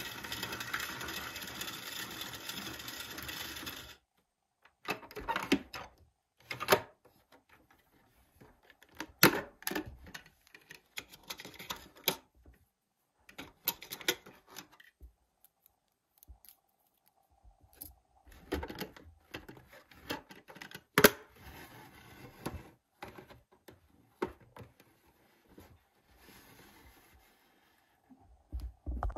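Toy washing machine's small battery motor running with a steady buzz after its ON button is pressed, stopping about four seconds in. After that, sharp plastic clicks and knocks as its door is opened and plastic hangers are handled, the loudest knock about twenty seconds in.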